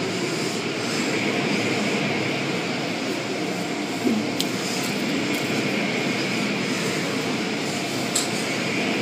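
Automatic car wash heard from inside the car: cloth wash strips swishing and slapping over the glass and body amid water spray and the steady rumble of the wash machinery. A couple of sharp knocks, about four seconds in and near the end.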